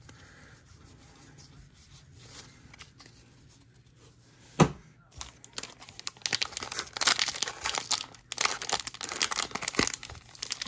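A 2022 Topps Series 2 fat pack's wrapper being torn open and crinkled, in quick bursts through the last few seconds, after a single sharp tap about four and a half seconds in.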